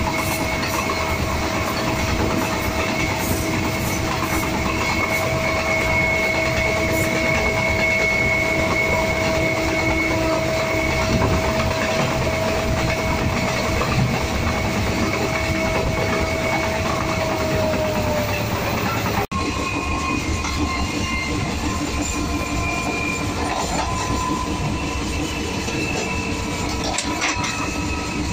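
Train running at high speed, heard from the gap between two coaches: steady rumble and clatter of the wheels over the rails, with a steady high squeal from the wheels. The squeal fades out about two-thirds of the way through, then there is a brief dropout, and the running noise continues.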